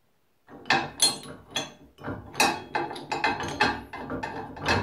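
Metal clicks and clunks of a budget wood lathe's tool-rest assembly being fitted to its red steel bed and its locking handle being worked, a quick irregular run of knocks starting about half a second in.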